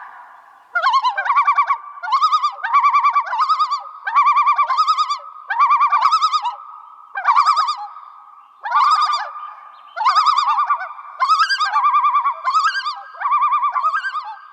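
A bird-like call repeated in about a dozen short warbling phrases, each a quick wavering note about half a second to a second long, with brief pauses between.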